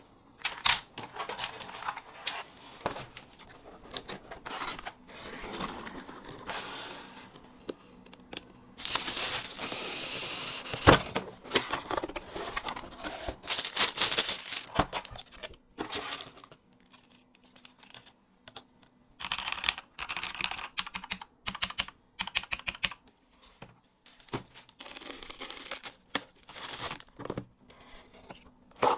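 Packaging being handled and torn open, with cardboard and plastic rustling, knocks and a long stretch of tearing. About two thirds of the way through comes a quick run of typing on an Aigo A100 mechanical keyboard, its switches clicking rapidly, followed by more handling of a box.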